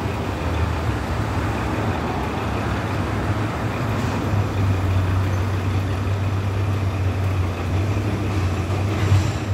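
Heavy semi truck's diesel engine idling with a steady low hum.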